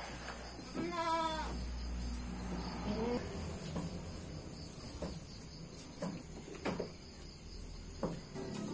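A farm animal bleats once with a wavering call about a second in, then gives a shorter rising call near three seconds in. A few soft knocks follow over a low rumble.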